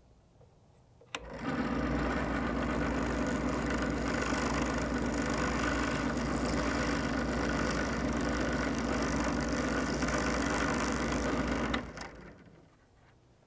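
WEN benchtop drill press switched on with a click about a second in, its motor running steadily for about ten seconds while a titanium step drill bit enlarges the hole in a small metal ring terminal, then switched off near the end and winding down.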